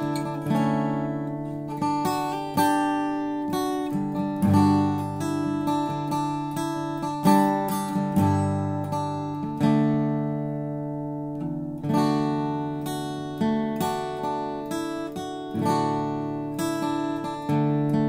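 Redburn RB-200 cutaway steel-string acoustic guitar played fingerstyle: a continuous run of plucked notes and chords ringing out. About ten seconds in, one chord is left to ring and fade for a couple of seconds before the picking resumes.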